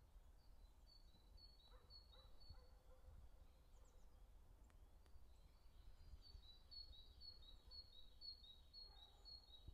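Faint songbird song: a phrase of two notes, high then slightly lower, repeated several times, in two runs, the first short and the second longer near the end. A faint low rumble runs underneath.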